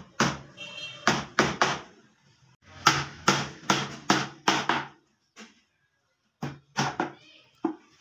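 Hammer driving small nails through a wooden molding into a bed panel: runs of three to five sharp blows about 0.4 s apart, each with a short hollow ring from the wood, with pauses between runs.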